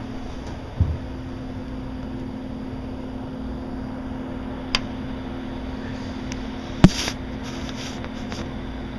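A steady mechanical hum, one low even tone over a soft hiss, with a low thump about a second in and a few sharp clicks, the loudest about seven seconds in.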